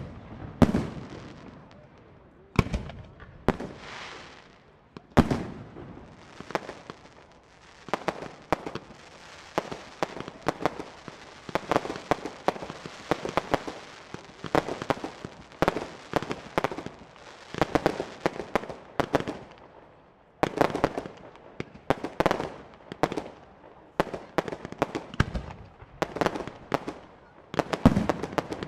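Professional fireworks display: aerial shells up to 4 inches bursting one after another with sharp bangs. A dense run of crackling fills the middle stretch.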